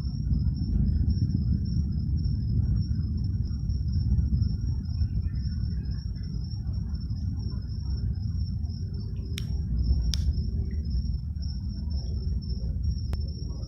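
Low, steady rumble of a SpaceX Falcon 9 rocket's engines heard from about ten miles away, with a continuous high cricket trill over it. A few sharp clicks come in the second half.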